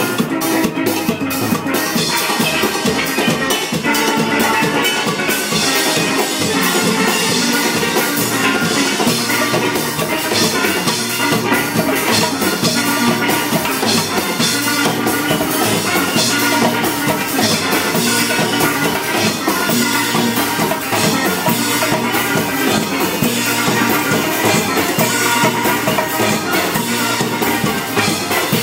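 Steel band playing together: chromed steel pans carrying the tune over deep bass pans, struck notes ringing continuously at an even loudness.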